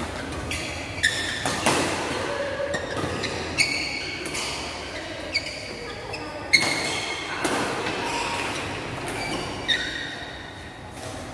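Badminton doubles rally: a string of sharp racket hits on the shuttlecock at irregular intervals, echoing in a large hall, with brief squeaks of shoes on the court floor between them.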